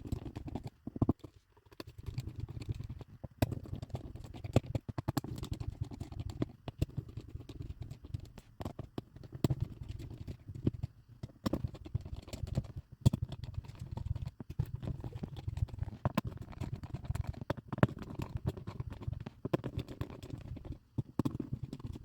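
Small clicks, taps and scrapes of tools and parts being handled while a smartphone is taken apart, over a steady low hum.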